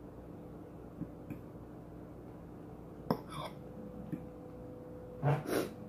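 Close-up eating sounds: a few small clicks and smacks while she eats, with a sharper click about three seconds in and a louder pair of mouth smacks near the end.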